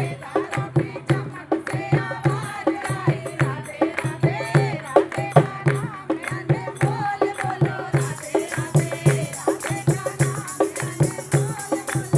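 Devotional bhajan music: a melody sung over a steady hand-drum beat with rattling jingles. A bright shimmer of jingles or cymbals joins about eight seconds in.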